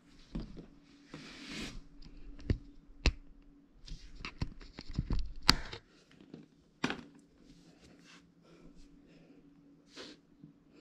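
Handling noise: a rustle about a second in, then several sharp taps and clicks as smartphones are handled and picked up off a table, over a faint steady hum.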